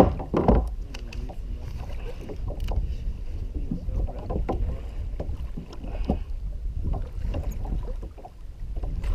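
Wind buffeting the microphone and water lapping around a kayak, with scattered small knocks and clicks.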